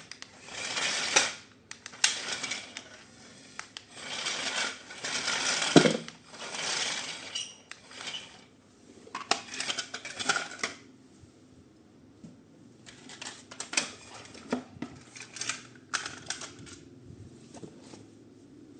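Plastic packaging and toy parts being handled: irregular bursts of rustling and crinkling, each up to about a second long, with sharp clicks and clacks in between.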